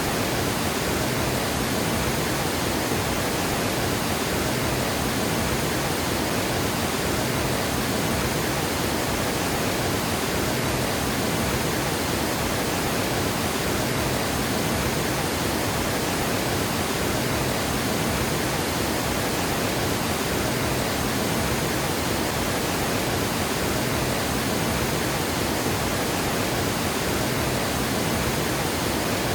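Water pouring over a river dam, a steady, unbroken rush of white water with no change in level.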